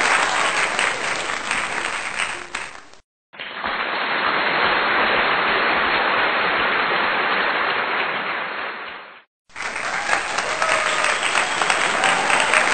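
Recorded crowd applause played as a sound effect, in three stretches split by two brief cuts to silence about three and nine seconds in; the middle stretch sounds duller than the other two.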